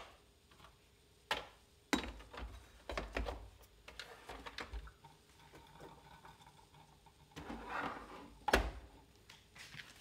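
Plastic and metal parts of a Ninja drip coffee maker being fitted back into the machine: a series of clicks and knocks as the carafe, brew basket and water reservoir are seated, with a short scrape and the loudest knock near the end.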